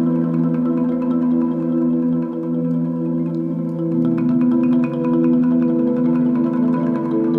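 Rosewood marimba played in rapid rolls, holding a sustained chord, with a lower note joining about four seconds in.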